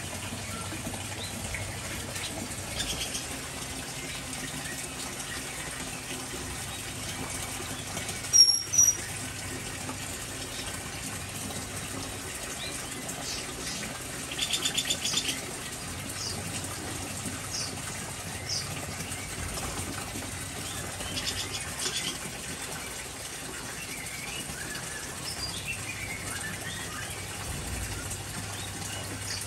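Songbirds calling in an aviary: scattered short chirps and whistles, a loud sharp call about eight seconds in, and a quick rattling series about halfway through, over a steady hissing background.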